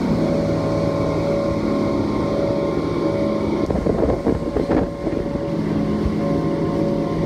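Motorboat running at speed: a steady engine hum under the rush of wind and water spray. The sound turns rougher and less even for about a second, about four seconds in.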